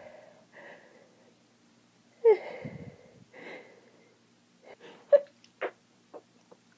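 A woman with a tree-pollen allergy moaning and breathing hard between sneezing fits: one loud moan with a falling pitch about two seconds in, a breathy exhale after it, and a few short sharp breaths near the end.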